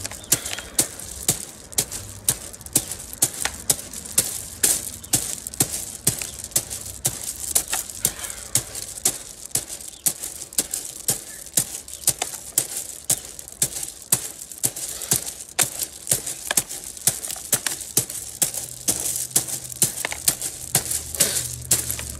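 Hands striking fingertips-first into a barrel of gravel and crushed rock, over and over. Each strike is a sharp clatter of stones, about two a second.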